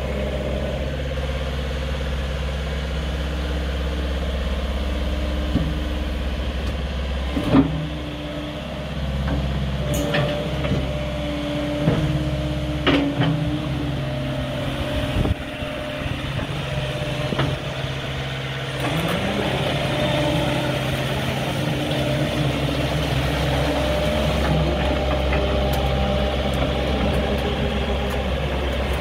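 JCB 86C-1 midi excavator's diesel engine running steadily, with several sharp knocks and clanks in the middle of the stretch. The engine note dips about eight seconds in and changes again about nineteen seconds in.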